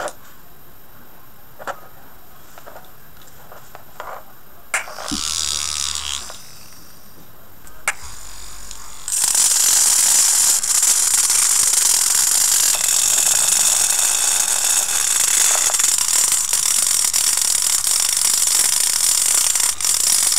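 A few clicks and a brief spin of a small 9-volt DC motor. Then, from about nine seconds in, a homemade sandpaper drum sander steadily grinding against a steel scissors blade with a loud high hiss, sanding off the rust.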